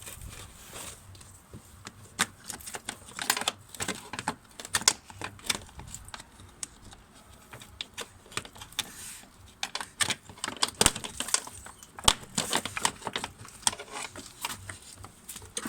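Irregular clicking and clattering of hands and tools working the plastic coolant distributor and its hoses and clips loose.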